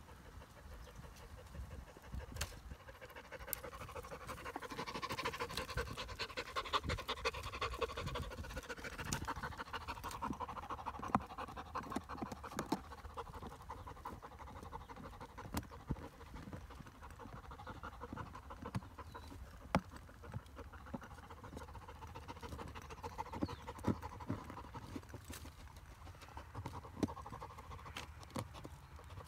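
Kars shepherd dog panting rapidly and hard, heaviest in the first half and again near the end, with scattered sharp clicks and snaps throughout.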